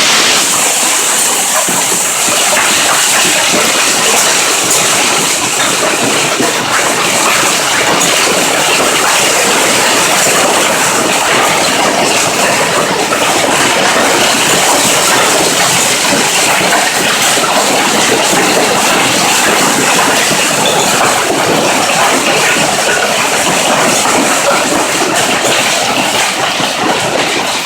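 A hailstorm: hailstones falling hard and striking surfaces in a loud, dense, steady clatter of countless impacts.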